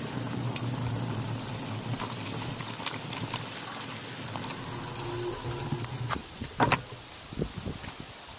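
E-bike rolling along a dirt trail: tyre and wind noise that dies away as the bike slows, followed by several sharp knocks and rattles, one louder than the rest, about two-thirds of the way in.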